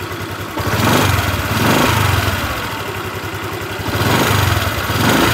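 Honda Vario 150 scooter's single-cylinder engine running and revved up twice with the throttle. It makes a rough 'ngerr' whirr with small rapid 'ngelicik' ticking from the middle of the engine. The mechanic thinks this roughness is likely wear from heavy, hot use.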